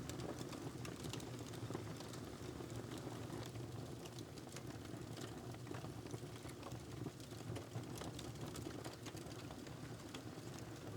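Wood fire crackling in a fireplace: irregular small pops and snaps over a steady low rumble.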